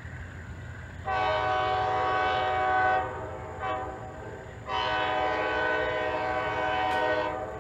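Diesel locomotive air horn blowing a chord in a long blast, a short blast and another long blast, the end of the grade-crossing warning pattern, from the lead GE B36-7. A low, steady locomotive engine rumble runs underneath.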